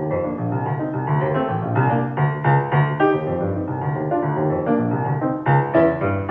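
Keyboard music with a steady bass line, played back through Genelec M030 studio monitors and a 7040A subwoofer and picked up by a stereo microphone in a small room.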